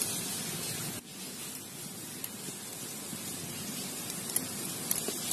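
Steady hiss with a few faint clicks.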